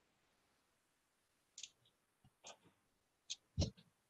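A few faint, separate computer mouse clicks, about four of them spread over the last two and a half seconds. The loudest comes near the end and has a dull knock to it.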